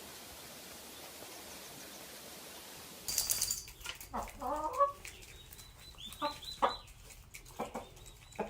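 Faint steady hiss, then about three seconds in chickens clucking: a longer wavering call followed by several short clucks.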